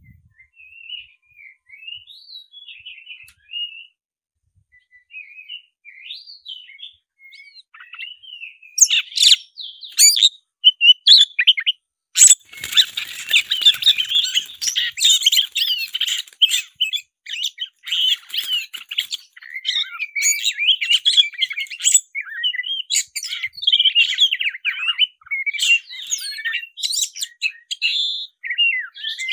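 Oriental magpie-robin (the black-breasted kacer) singing: soft, scattered whistles at first, then from about nine seconds in a loud, fast, varied song of whistles and harsher notes. This is the full, agitated fighting-mode song that keepers call gacor tarung.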